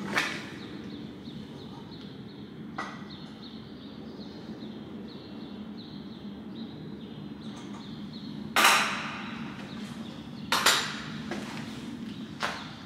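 Several sharp clanks and knocks, a few seconds apart, the loudest about nine seconds in, from a motorcycle and its cover being handled as the bike is uncovered.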